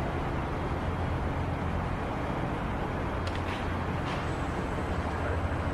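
Heavy engines running with a steady low drone, with a couple of faint clinks a little after three seconds and about four seconds in.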